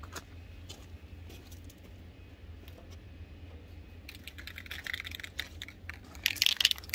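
Rapid light clicking and rattling of small objects being handled, starting about four seconds in and getting louder near the end, over a low steady rumble.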